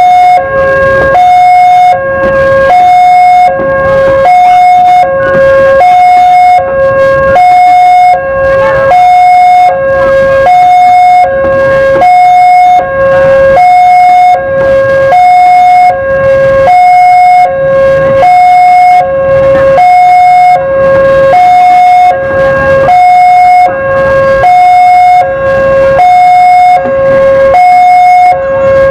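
Railway level-crossing warning alarm sounding a steady two-tone signal, a higher and a lower note alternating about once a second, while a train rolls past with a low rumble underneath.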